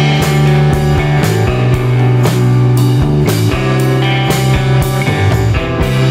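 Background instrumental rock music with guitar and drums keeping a steady beat.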